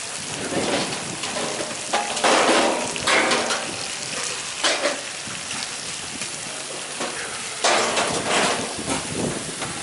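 Large joints of beef sizzling on a flat-top griddle, a steady hiss that swells louder twice, about two seconds in and again near the end, with a few short metal clicks of tongs and trays.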